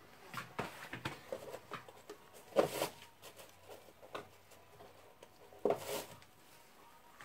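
Gloves being pulled off and new ones worked onto the hands: irregular rustling and handling noises, with two louder scrapes about two and a half and five and a half seconds in.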